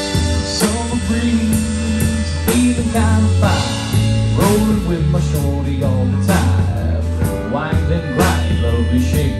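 Live band playing an instrumental stretch of a song on electric bass, electric guitars and drum kit, with steady bass notes under the guitars and drum hits.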